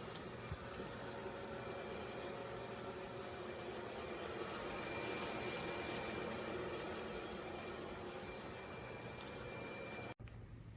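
Gas fireplace burning: a steady hiss of the burner flames, stopping abruptly near the end.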